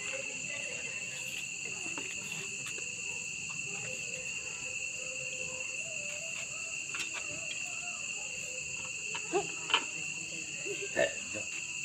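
Steady night chorus of crickets trilling at several high pitches at once, with a few short knocks near the end.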